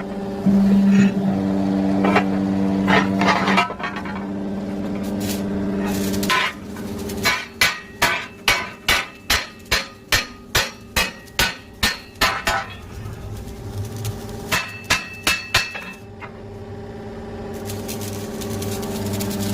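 Hammer blows on metal while repairing a reversible plough: about a dozen strikes at roughly two a second, then four more after a short pause. A steady engine hum runs before and after the hammering.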